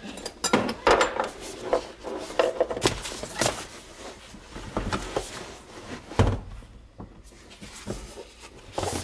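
Infiniti Q50 rear seat backrest being jiggled off its hooks and lifted out: irregular knocks, clunks and rustling of the seat frame and upholstery, with one heavy thump about six seconds in.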